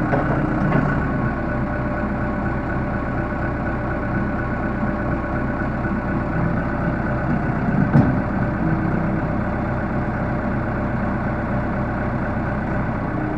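Case 580L backhoe's diesel engine idling steadily, with a single sharp knock about eight seconds in.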